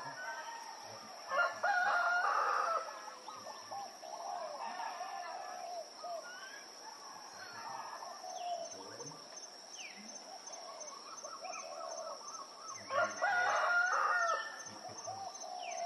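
A rooster crowing twice, about a second in and again near the end, with smaller birds chirping in between over a thin, steady high whine.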